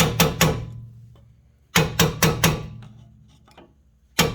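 A two-pound sledgehammer beats on a steel screwdriver wedged at the front brake caliper, working the caliper back to free the pads. The blows come in quick runs of three to five, about five a second, with metallic ringing that dies away between runs.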